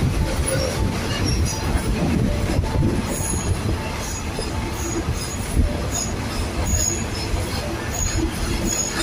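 A local passenger train running through a station, heard from inside the carriage: a steady rumble of wheels on rail, with brief high-pitched squeaks coming back now and then from a few seconds in.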